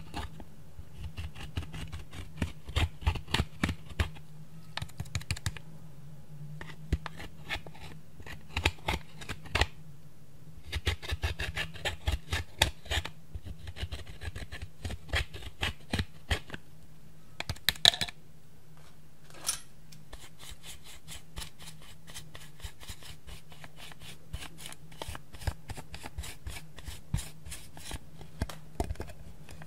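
Pressed eyeshadow being scraped and crushed out of plastic palette pans with a small pointed tool: quick, irregular scratching and clicking in bursts, with short pauses between.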